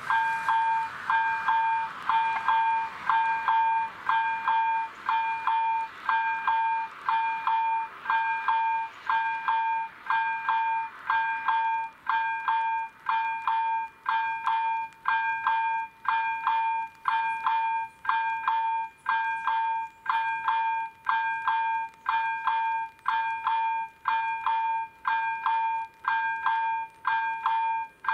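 Railway level crossing warning bell ringing steadily, one clear-pitched ding about once a second, while the crossing is closed. A fading rush of noise fills the first few seconds.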